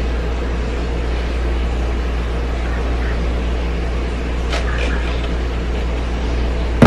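Steady rumbling hiss of a large stockpot boiling hard on a gas burner.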